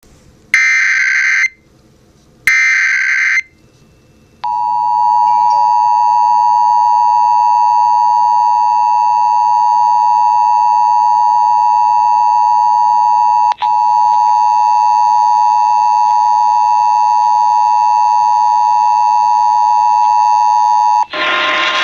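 Emergency Alert System broadcast heard over FM radio. It opens with two one-second bursts of screeching SAME header data tones, then the steady two-tone EAS attention signal (853 and 960 Hz). The attention signal sounds for about sixteen seconds, with one brief dropout partway through, and an announcer's voice begins just before the end.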